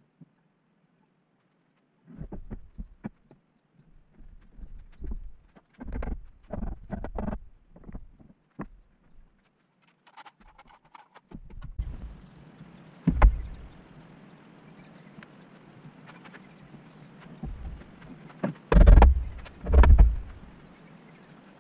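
Irregular knocks and clatter of long metal bar clamps being handled against a wooden table frame during a glue-up, ending in a few heavy thumps. A steady hiss sets in about halfway through.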